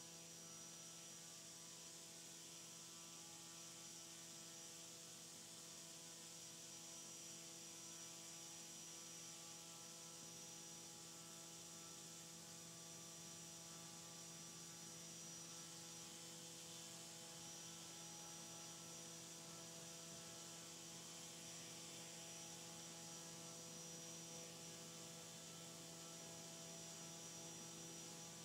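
Faint, steady hum of a drone-scale propeller and its electric motor running at a constant speed of about 5,000 RPM on a thrust test stand.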